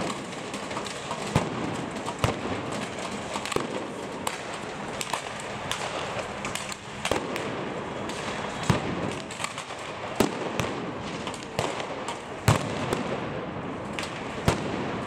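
Irregular sharp bangs from a street clash between riot police and protesters, the loudest every second or two, over a steady noisy din.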